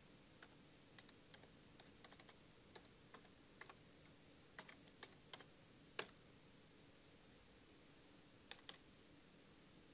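Computer keyboard keys clicking as a short line of text is typed: scattered single keystrokes, the loudest about six seconds in, then a pause before two last keystrokes near the end. A faint steady high-pitched whine sits underneath.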